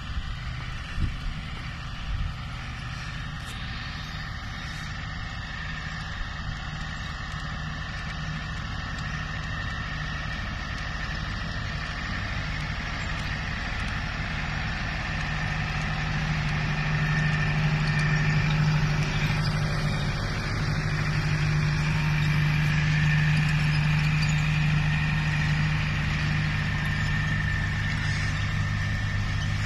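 Massey Ferguson 5710 tractor's four-cylinder diesel engine running steadily under load while pulling a potato planter. It grows louder through the first half as the tractor draws close, then holds.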